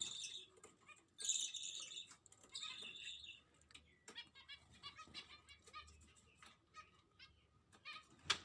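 Small caged pet birds chirping in quick bursts of short, high calls, with scattered light rustling and clicks and one sharp click near the end.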